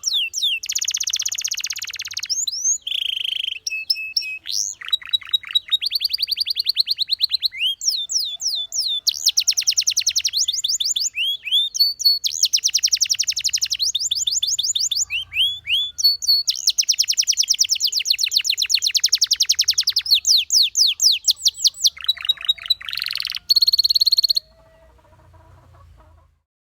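Canary singing a high-pitched song of fast trills and rolls, runs of rapidly repeated notes broken by gliding whistles. The song stops about 24 seconds in, leaving only a faint low hum.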